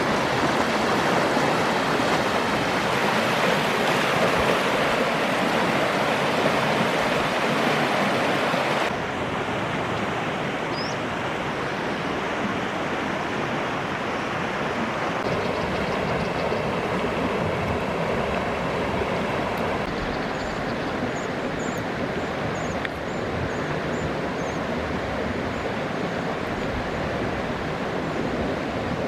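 Steady rush of river water running over rocks. It becomes a little quieter about nine seconds in, and a run of faint high chirps comes in during the second half.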